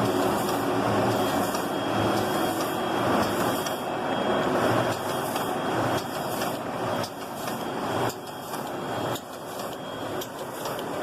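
Maqplas NCS 1100 plastic-bag cutting and sealing machine running, a steady mechanical clatter with repeated light clicks; it gets quieter in steps about 7 and 9 seconds in.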